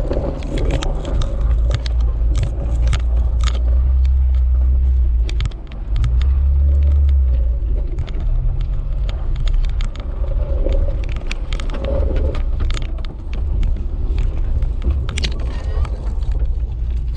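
Jeep Wrangler TJ driving slowly over a rutted, snowy trail, heard from inside the cabin: a steady low engine and drivetrain rumble that swells briefly about six seconds in, with many sharp knocks and rattles as the Jeep bounces over the ruts.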